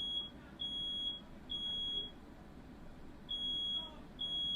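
Smoke alarm sounding in its three-beep evacuation pattern: a high steady beep of about half a second, three in a row, a pause of about a second, then three more. It is set off by smoke from a firework that caught fire indoors.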